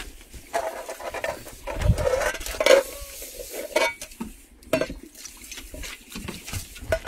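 Irregular clinks and knocks of metal bowls and pans, with wheat grain being stirred by hand in a wide metal pan roasting over a wood fire.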